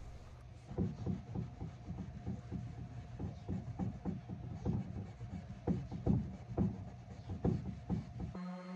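Super fine steel wool scrubbed back and forth over a walnut surface wet with paint stripper, working leftover paint out of the open grain: a rhythmic rubbing of about two strokes a second over a steady low hum. It cuts off near the end.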